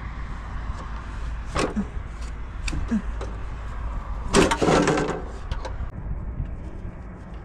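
Scattered knocks and clicks of hand work on the vehicle during an oil change, with one louder clattering scrape about four and a half seconds in, over a steady low rumble.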